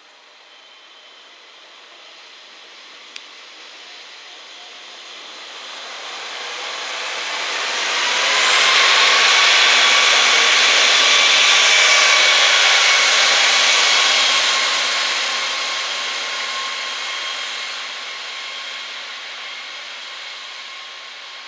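Two-car KiHa 47 diesel railcar set (JNR KiHa 40 series) passing by: the noise of its engines and wheels swells over a few seconds, stays loud for about six seconds with a few steady high tones ringing over it, then fades as it moves away.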